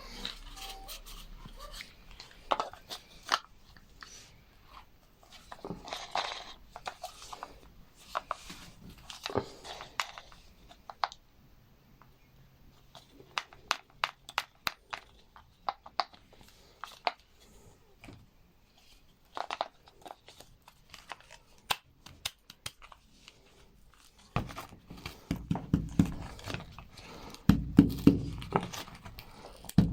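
Hands working on small washing-machine drain pump parts: scattered sharp clicks and short tearing, scraping noises. Heavier low handling knocks and rubbing come near the end.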